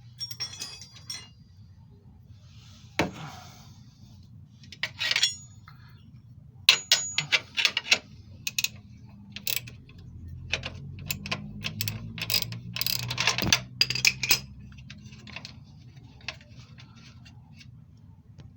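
Wrenches and other metal hand tools clinking and clicking against bolts and metal parts while a loosened engine-mount bolt and nut are worked free, a run of sharp irregular clicks, busiest in the middle.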